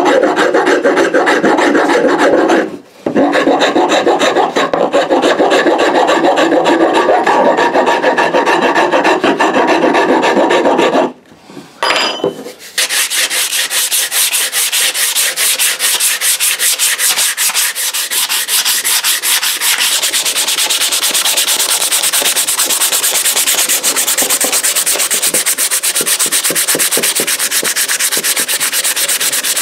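A metal file stroking back and forth along a wooden axe handle, shaping the wood. After a short pause about eleven seconds in, sandpaper rubs briskly along the handle, a higher, finer scratching.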